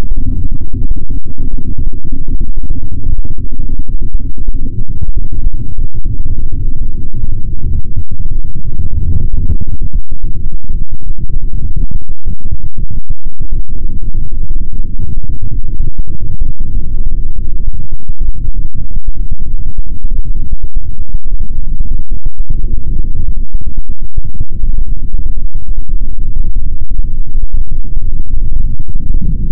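Loud, dense low rumbling electronic noise music, with many brief sudden cuts.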